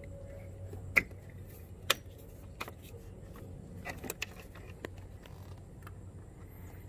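Sharp clicks and knocks of hard plastic as the black plastic electrical-component bracket on a Honda Rancher ATV is worked loose and lifted off. Two loud snaps come about one and two seconds in, followed by several lighter clicks.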